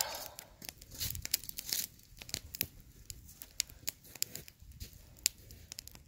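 Cord rasping and rubbing against the bark of three sticks as it is wrapped round and pulled tight in a tripod lashing, with scattered sharp clicks.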